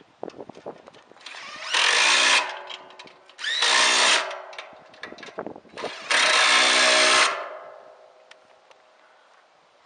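Power drill running in three bursts of about a second each, turning bolts on the satellite dish mount.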